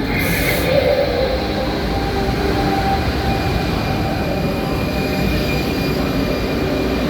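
Train running close by: a steady rumble with faint, steady whining tones over it. There is a short hiss about half a second in.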